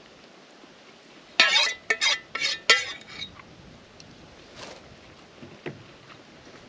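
Metal cutlery clinking against a dish: four or five sharp, ringing clinks in quick succession about a second and a half in, then a couple of faint taps.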